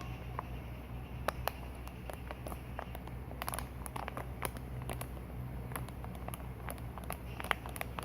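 Glue and activator being stirred into slime: scattered small sticky clicks and crackles, busiest a few seconds in and again near the end, over a steady low hum.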